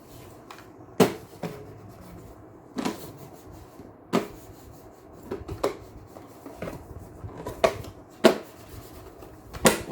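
Computer mouse clicking, about eight single sharp clicks at irregular intervals of a second or so.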